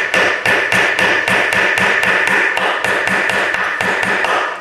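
Claw hammer rapidly striking the head of a long metal rod to drive it through a wine cork, about four to five blows a second, with a steady metallic ring.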